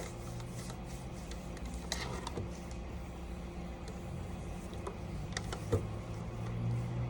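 A steady low mechanical hum, swelling slightly in the last two seconds, with a few light clicks and taps.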